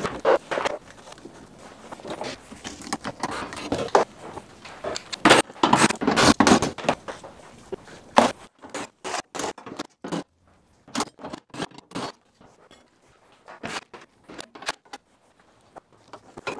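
Plastic cowl panel being pulled out from below a 2010 Toyota Prius's windshield: plastic scraping and rattling with clips popping loose. After about eight seconds it thins to scattered sharp clicks and taps.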